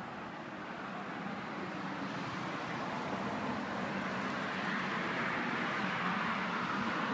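Steady hiss of distant road traffic, growing a little louder in the second half.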